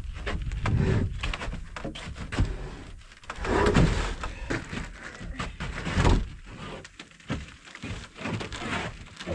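Irregular wooden knocks and thunks with some scraping as timber framing lumber is handled and shifted into place, with one heavy thud about six seconds in.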